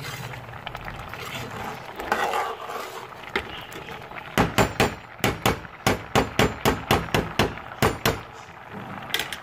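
Metal spoon stirring grated carrots simmering in milk in a metal pan. About halfway in comes a quick run of metal-on-metal knocks, several a second for about four seconds, as the spoon strikes the pan's side and bottom to keep the reducing milk from catching.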